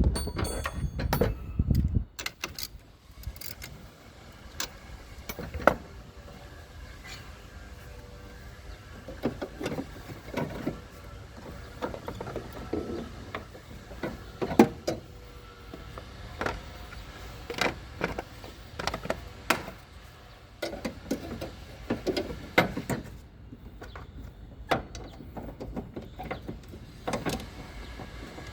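Irregular clicks, knocks and short scrapes of hand tools and metal parts being handled during work on a car battery, over a faint steady hum. There is a louder rumbling clatter in the first two seconds.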